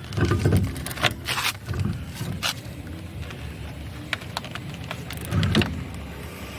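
A wheel cap being fitted onto a car's spare wheel: a few sharp clicks and knocks with dull thumps as it is handled and pressed into place.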